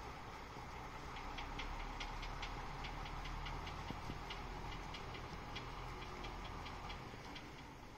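A garbage dump truck's diesel engine idles with a low rumble. Over it runs a series of quick light ticks, about five a second, and the rumble drops away near the end.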